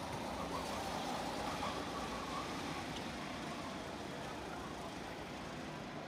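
A pack of SODI LR5 rental karts with 160 cc four-stroke engines running past together; the engines are loudest a second or two in and then fade slowly.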